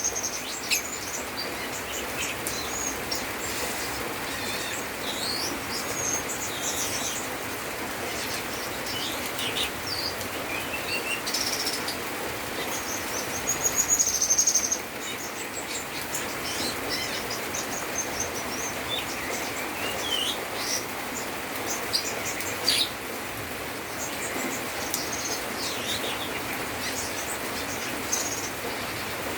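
Cucak keling singing a long, varied song of short chirps and whistles, its song filled with mimicked calls of other birds. A louder, longer trill comes about 12 to 14 seconds in, over a steady hiss.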